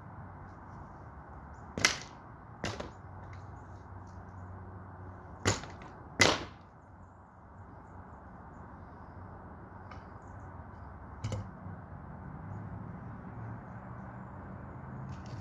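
Sharp cracks and bangs of a white bed frame being broken apart by hand: four loud strikes in the first seven seconds, in two pairs, then a fainter knock a few seconds later.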